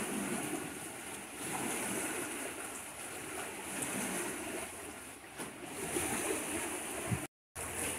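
Small sea waves washing and lapping around pier pilings and along the sandy shore, a steady wash of water with no clear single splashes. The sound drops out completely for a moment just after seven seconds.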